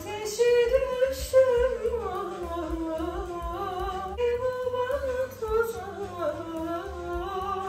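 A woman singing a slow melody alone, without accompaniment, gliding between long held notes.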